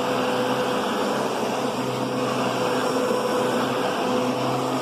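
Kenmore Progressive vacuum cleaner running steadily while being pushed along the floor: an even rush of airflow over a constant motor hum.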